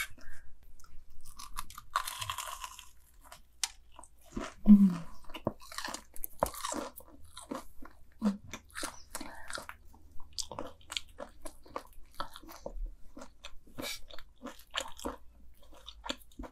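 Close-up chewing of deep-fried mac and cheese balls with a Takis and Cheetos crust: many sharp, crisp crunches as the fried crust breaks, with a couple of short closed-mouth hums.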